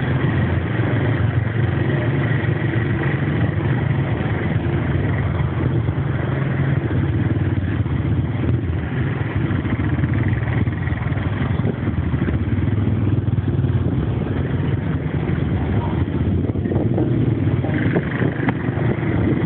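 Steady engine running in slow, crowded street traffic, with motorcycles close by.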